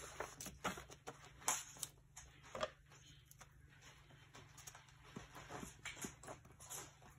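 Faint, irregular clicks and rustles of paper and craft pieces being handled, cut and pressed down, with the loudest taps in the first three seconds.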